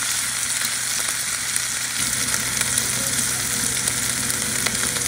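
Bacon strips sizzling in hot grease in a nonstick frying pan, pushed around with a wooden spatula: a steady frying hiss with small pops.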